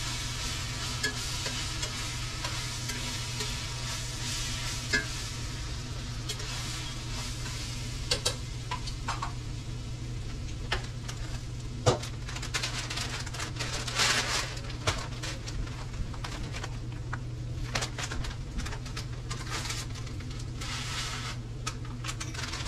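Ground beef sizzling as it fries in a skillet, stirred now and then so that the utensil scrapes and clicks against the pan. A steady low hum runs underneath.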